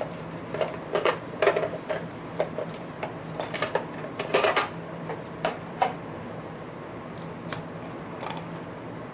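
Small hard objects clinking and rattling as someone rummages through a bag of parts and tools, an irregular run of clicks and knocks that dies away about six seconds in, leaving a faint steady hum.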